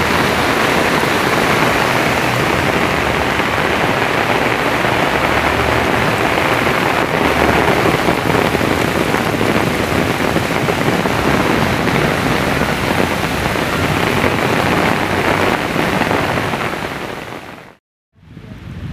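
Heavy downpour: a steady, dense hiss of rain falling hard. About seventeen seconds in it fades out to a brief silence, then softer rain comes back.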